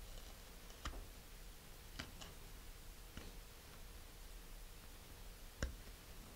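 Hobby knife blade cutting vent holes into a model rocket body tube: a handful of faint, scattered clicks and ticks as the point scores and punches through the tube wall, the loudest near the end.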